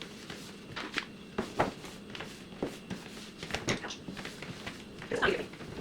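Light knocks and clicks of drink cans being handled and set into a fridge, scattered irregularly, over a steady low hum.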